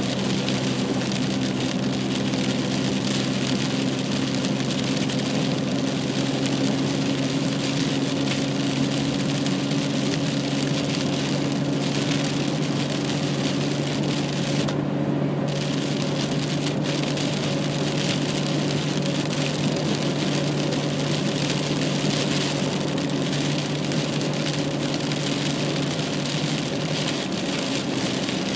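Car driving, heard from inside the cabin: a steady low engine and road drone under a continuous hiss. The hiss briefly drops out about halfway through.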